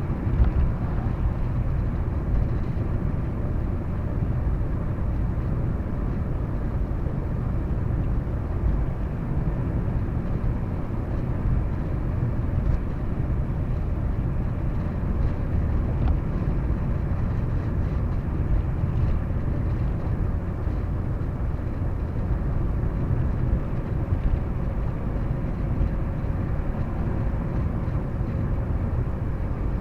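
Steady low road rumble of a car heard from inside the cabin while driving, with a few small bumps.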